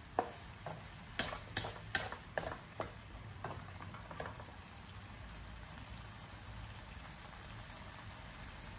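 Wooden spatula knocking and scraping against a metal pan as vegetables are stir-fried, about eight sharp knocks in the first four seconds. After that the stirring stops and only a steady low hum is left.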